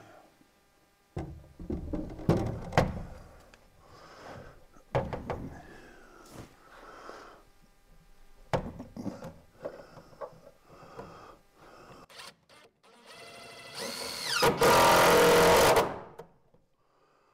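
Knocks and scraping as a metal breaker box is handled against an OSB-sheathed stud wall. Near the end a cordless drill runs for about two and a half seconds, its whine rising in pitch, fastening the box to the wall.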